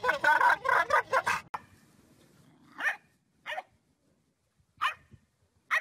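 A dog's weird vocal noise, rapid and choppy, cutting off about a second and a half in; then a few short, separate dog barks spaced about a second apart.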